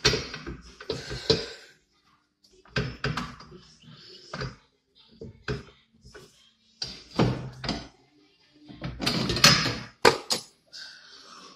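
Tools clanking, knocking and scraping against metal parts of a BMW E46's rear suspension and hub, in short irregular bursts.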